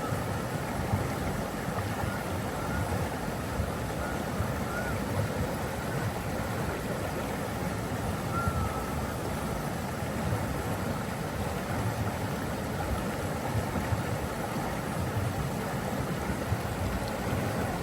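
Steady rushing of flowing water, as from a waterfall or fast stream, unbroken throughout, with a few faint short chirps now and then.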